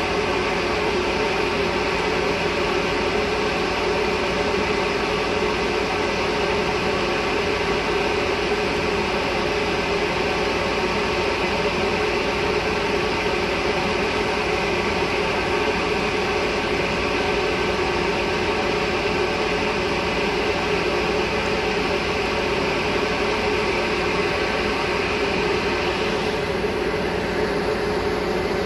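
Diesel locomotive engine idling, a steady unchanging drone with several constant tones.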